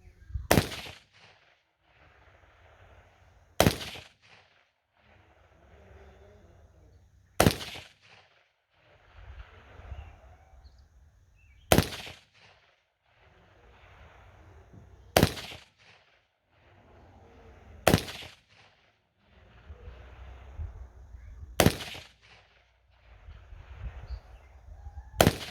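Eight single gunshots fired one at a time, about every three to four seconds, each a sharp crack with a short echo.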